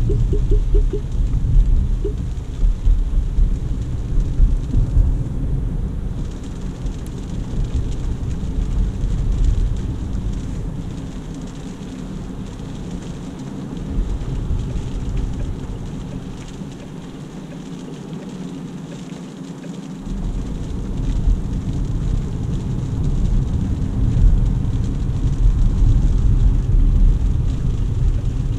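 Interior noise of a DongFeng Forthing T5 EVO SUV driving on a wet road: a steady low rumble of tyres and road with the engine underneath. It quietens for several seconds midway, then builds again.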